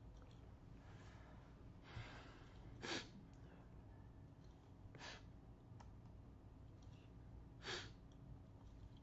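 Near-silent room tone with a faint steady low hum, broken by four short breaths or sighs close to the microphone. The loudest comes about three seconds in.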